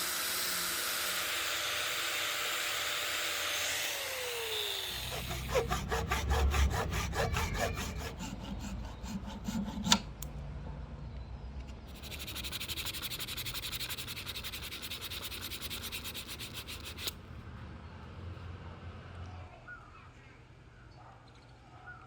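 Work on the ebony handle: a small motor hisses and winds down, then two spells of quick, even rubbing strokes on the hardwood, with a sharp click between them.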